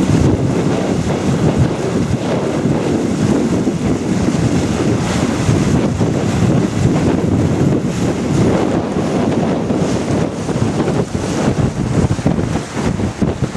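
Wind buffeting the microphone over the steady rush of water along the hull and bow wave of a pilot cutter under sail at speed.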